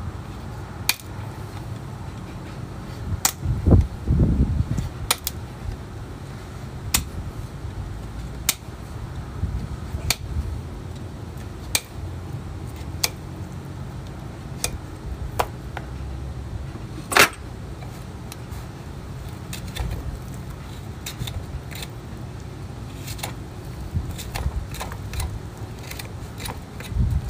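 Hoof-trimming tools working an overgrown horse hoof: sharp clicks at irregular spacing, roughly one a second, as hoof horn is cut and pared away, the loudest about seventeen seconds in. A low rumble runs underneath.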